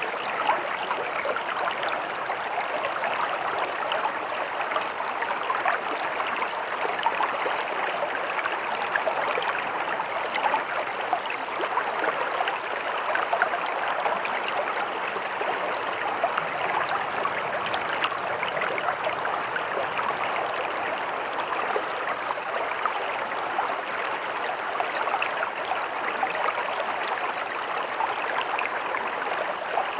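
Stream water running over stones, a steady rushing babble with fine splashing and gurgling.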